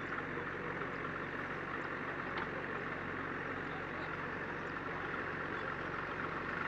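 Diesel engine of heavy farm or earthmoving machinery running steadily at an even speed.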